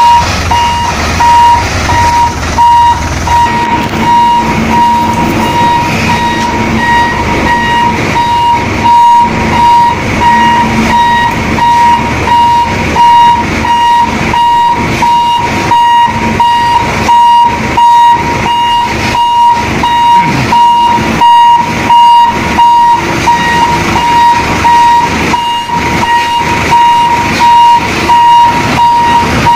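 Reverse warning beeper on a Hino Ranger FG 235 TH tractor truck, sounding repeated high beeps over the truck's running diesel engine.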